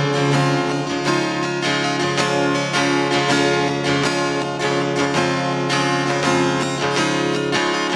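Acoustic guitar strumming chords over a cajon beat, an instrumental passage of a song played live with no singing.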